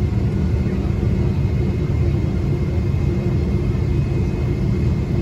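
Cabin noise of a Boeing 777 airliner rolling slowly on the ground: a steady low rumble from the jet engines and the wheels, with a faint steady hum above it.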